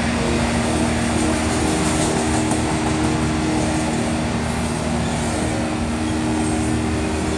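Double-stack intermodal freight train's well cars rolling past on the rails: a steady, even rumble and rush of wheels on track, with a few steady held tones humming underneath.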